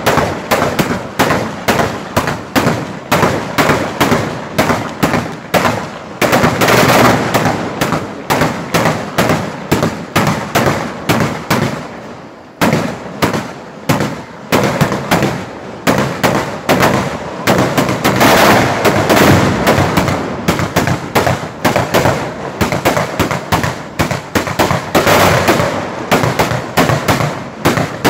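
A row of antichi mortaletti liguri, traditional Ligurian small black-powder mortars, going off one after another as they are lit in turn: sharp bangs in rapid succession, roughly three a second, with a brief pause about twelve seconds in.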